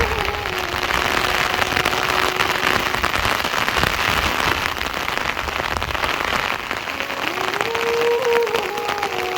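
Steady, heavy rain falling, a dense even hiss. A faint held tone with a higher tone above it steps in pitch like a simple tune at the very start and again near the end.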